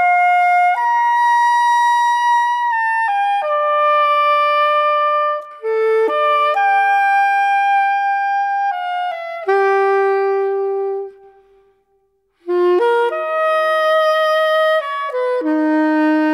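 Background music: a slow solo melody of held notes on one instrument, with a short break about eleven seconds in.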